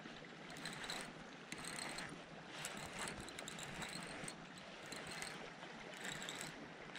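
Fishing reel clicking in uneven spurts as a big smallmouth bass hooked on the line is fought, over the rush of fast-flowing creek water.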